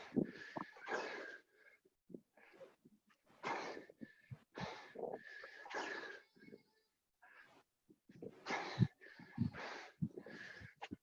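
Hard, wheezing breaths of people out of breath from doing burpees, gasping in and out in short pulses about once a second.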